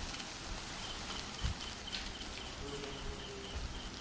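Raw eggs going into a pan of frying onion, tomato and capsicum, with the oil sizzling steadily. A faint high chirp repeats rapidly in the background.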